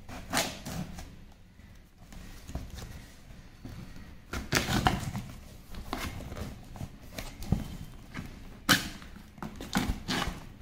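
Knife slitting the packing tape on a cardboard shipping box, with hands scraping and tugging at the cardboard and tape: irregular scratchy rasps and rips, the loudest about halfway through and again near the end.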